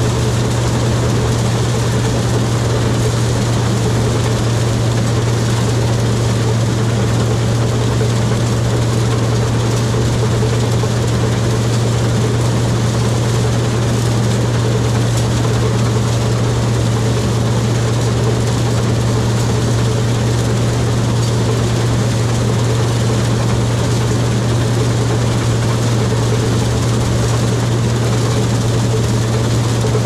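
Heavy diesel farm machinery engine running at a steady, unchanging speed, a constant low drone with a strong hum.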